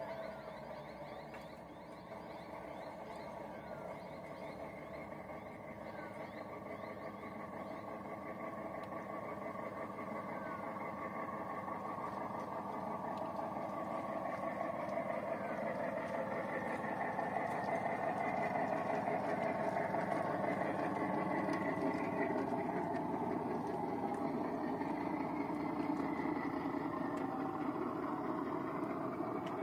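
Miniature diesel-outline locomotive and its wagons running along 5-inch gauge track, a steady mechanical running sound with wheels on the rails that grows gradually louder as the train approaches, loudest about two-thirds of the way in.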